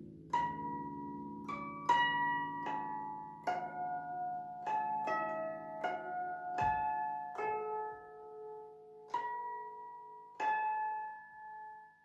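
Guzheng, a 21-string Chinese zither, played solo: about a dozen single plucked notes, slow and spaced out, each left to ring and die away, with the last note fading near the end.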